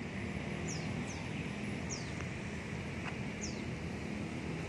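Steady street background noise, with a small bird's short, high chirps that fall in pitch, repeating every second or so.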